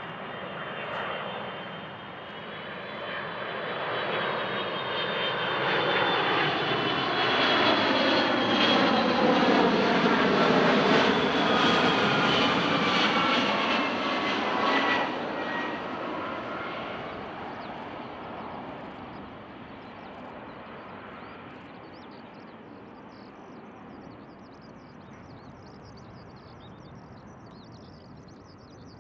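Boeing 757-200 airliner on landing approach flying past: the jet engines' rumble and whine swell to a peak about ten seconds in, the whine falling in pitch as it passes, then fade away as it descends toward the runway.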